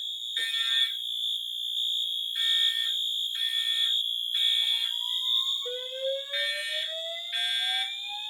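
Fire alarm notification appliances sounding together. A steady high-pitched tone runs under horn-like pulses in the three-pulse temporal evacuation pattern: three short blasts, then a pause. From about five and a half seconds in, a slow rising whoop sweep joins, the alert tone of the voice-evacuation system.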